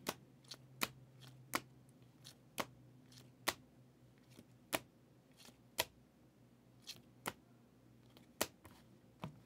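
Trading cards being handled and set down on a table, making a sharp click or tap about once a second at irregular intervals.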